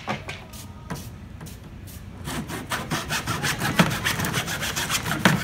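Hand saw cutting chair-rail moulding in a plastic miter box. A few slow strokes are followed by quick, steady back-and-forth sawing from about two seconds in.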